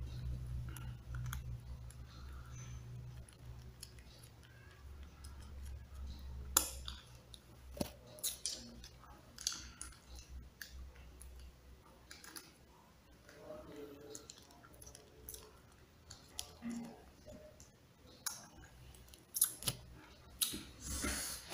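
Plastic sauce sachets being torn open and squeezed: scattered crinkles and sharp clicks, with a louder cluster near the end, over a low hum that fades about eight seconds in.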